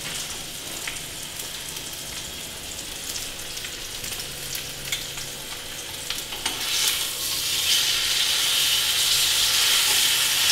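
Steak sizzling as it sears in hot olive oil in a frying pan. About seven seconds in it is flipped with tongs and the sizzle grows louder.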